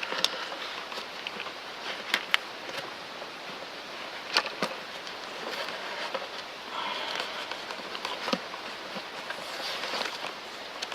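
Vinyl electrical tape being pulled off its roll and wound around an engine part, a crackly peeling with scattered sharp clicks from handling.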